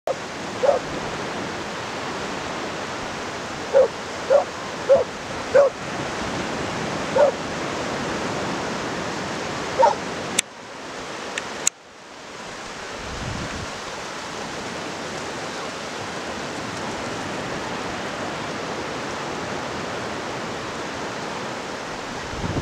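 Steady wash of low surf on a shallow sandy beach, with a dog barking sharply about seven times in the first ten seconds. Two sharp clicks come near the middle.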